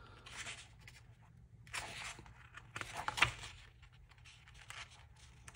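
Paper pages of a printed diary being turned and handled: three short rustling swishes, the third with a sharper crisp edge about three seconds in.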